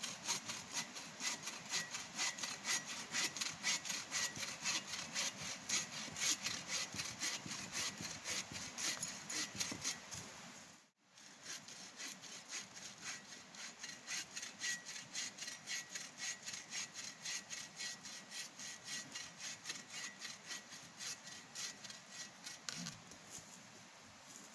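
Wood being sawn by hand in fast, even strokes, about three a second. The strokes break off sharply about 11 seconds in, then resume more softly and fade out near the end.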